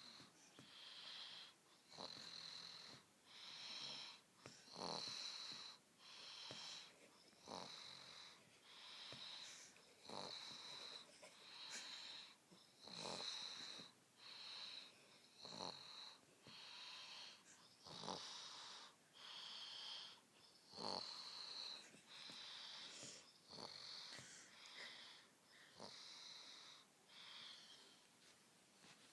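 Faint, steady snoring with a high, whistling wheeze on each breath, about one short wheezy snore every second and a half.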